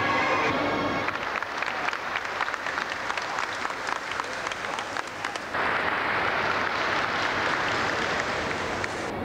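Audience clapping after a piece of dance music ends about a second in. About halfway through, the applause changes abruptly to a denser, smoother sound.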